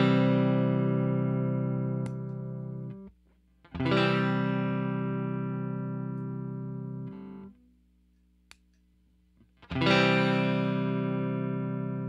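Electric guitar played through an HTJ Works Two Reverb pedal: a chord strummed three times, each ringing out and fading. The first two are muted after about three seconds. A short silent pause with a single click comes before the last.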